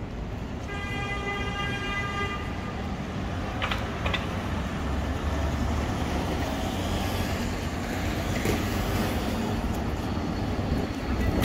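City street traffic with vehicles running past. A steady-pitched vehicle horn toots for about two seconds just under a second in, then two sharp clicks follow.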